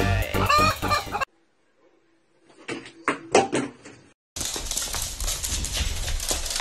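A hen clucking over background music, cut off about a second in. After a short silence come a few short, sharp sounds, then a steady hiss of handheld room noise.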